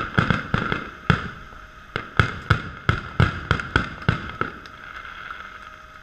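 Fireworks shells bursting overhead in a rapid, irregular run of sharp bangs that thins out after about four and a half seconds.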